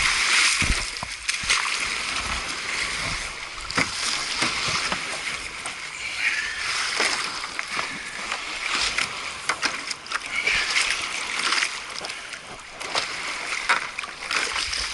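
Water splashing and slapping against a stand-up paddleboard as it is paddled across choppy water, with many small irregular splashes.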